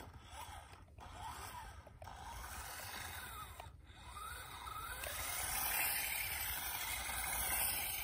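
Toy RC rock crawler's small electric motor and gears whining faintly as it drives off and back, the pitch rising and falling with each change of throttle while its brakes are tried. It grows louder in the second half as the car comes back closer.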